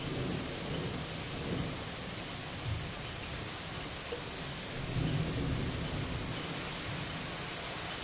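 Heavy rain falling steadily onto wet cobblestone paving, with a low rumble of thunder that swells about five seconds in.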